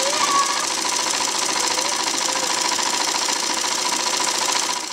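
Mechanical sewing machine stitching at speed: a fast, even clatter of the needle mechanism that fades out at the very end.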